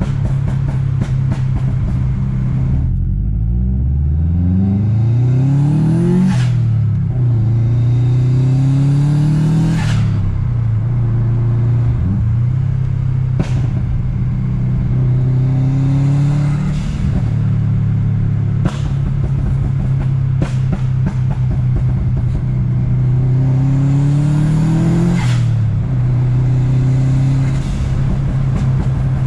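Turbocharged flat-four engine of a heavily modified Subaru Impreza WRX, running steadily and climbing in revs about four times, each climb ending with the note dropping sharply.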